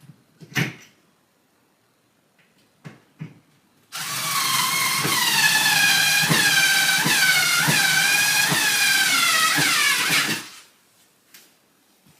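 Electric drill running for about six seconds, its motor whine dipping in pitch again and again as it bites under load, then winding down as it stops; a single knock and a few light clicks come before it.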